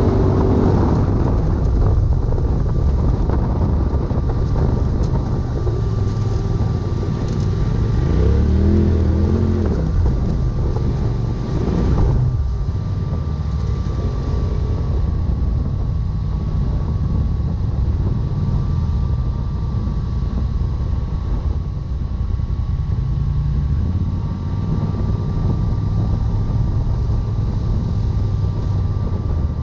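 Side-by-side UTV engine running under way, heard from the cab, with wind on the microphone. The engine revs rise and fall about eight to twelve seconds in, over a steady high whine.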